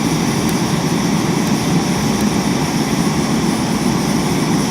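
Upright butane-propane canister stoves of the MSR Pocket Rocket type burning with their valves open all the way, making a loud, steady rushing hiss of gas flames.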